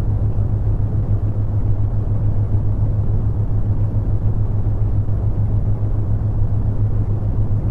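Steady brown noise, a deep even rumbling hiss, with a low steady hum of theta-wave tones beneath it.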